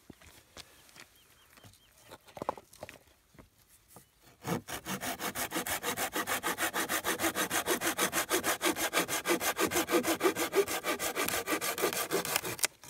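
Bahco Laplander folding saw cutting a dry, weathered branch. After a few light knocks, fast, even back-and-forth strokes start about four and a half seconds in and stop abruptly near the end as the branch is cut through.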